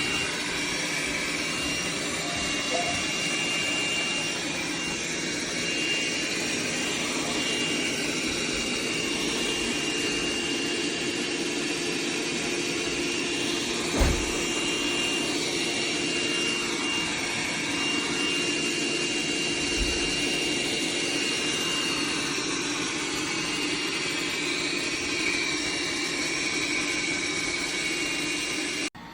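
MOVA P10 Pro Ultra robot vacuum system's suction motor running steadily with a high whine over a lower hum, cutting off suddenly near the end. A single low thump about halfway through.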